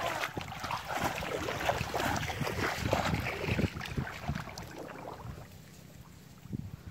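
Someone wading through shallow, muddy paddy-field water: irregular splashing and sloshing around the legs, which dies down to quiet water movement over the last couple of seconds.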